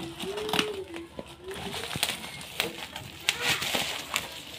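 Clear plastic packaging crinkling and crackling in sharp bursts as hands tear it open, with a low repeated cooing in the background.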